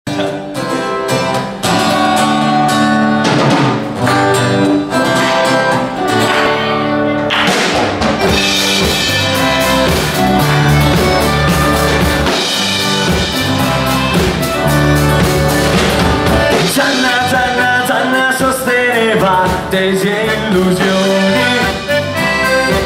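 A live acoustic band plays an instrumental intro: strummed acoustic guitars open alone, and after about two seconds the drum kit joins. The accordion is heard with the band.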